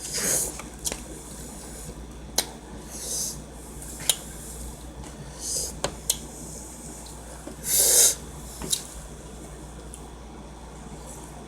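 Close-up eating sounds while eating sushi: sharp wet mouth clicks and smacks every second or two, with four short hissing, breathy bursts, the loudest about eight seconds in.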